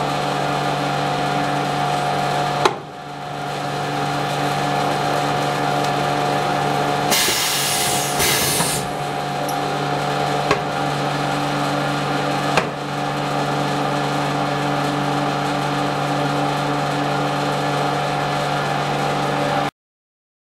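A semi-automatic tabletop skin-pack sealing machine running with a steady mechanical hum. There is a click about three seconds in, a loud hiss of air in two bursts lasting about two seconds near the middle, and two more sharp clicks a few seconds later. The sound cuts off abruptly near the end.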